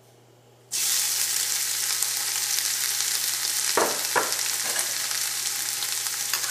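Chopped red onion hitting hot oil in a stainless steel frying pan: a loud sizzle starts suddenly less than a second in, then the onion keeps frying with a steady hiss.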